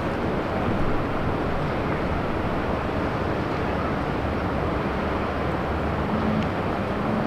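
Steady wind rumbling on the microphone over open outdoor ambience, with no clear events.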